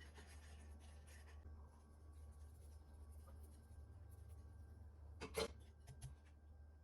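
Faint scratchy rubbing and light ticks over a steady low hum, with a brief louder scrape about five seconds in.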